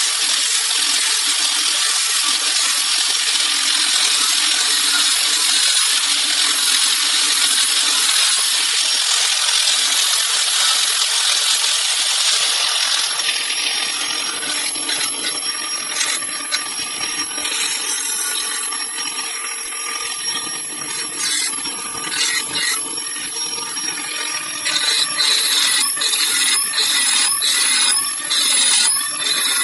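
Corded angle grinder with a sanding disc, sanding paint off a cast alloy wheel around a crack to bare it for welding. It runs steadily for about the first dozen seconds, then more unevenly, its sound dropping and surging as the disc is worked over the wheel.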